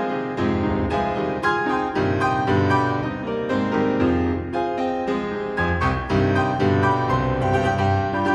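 Background music on a keyboard instrument, a steady stream of struck notes.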